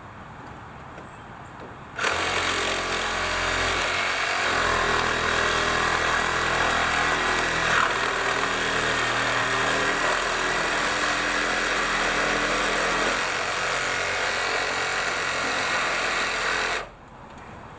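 Reciprocating saw cutting wood, running steadily for about fifteen seconds. It starts about two seconds in and stops suddenly near the end.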